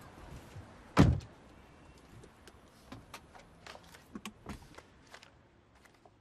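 A car door shuts with one heavy thud about a second in, followed by a scatter of faint small clicks and knocks from inside the car.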